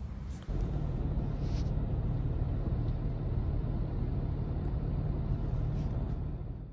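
A steady low rumble that starts suddenly about half a second in.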